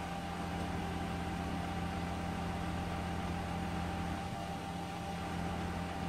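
Concrete pump truck's engine and hydraulics running with a steady drone and a constant hum while its boom is being raised.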